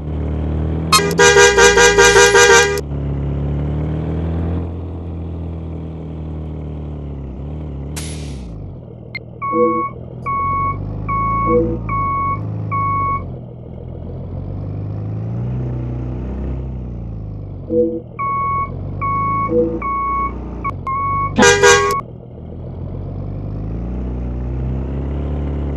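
Indonesian bus's multi-tone telolet (basuri) horn sounding a loud, rapidly pulsing chord about a second in, and again briefly near the end, over the steady running of a diesel bus engine whose pitch rises and falls. In between come two runs of about five short repeated beeps.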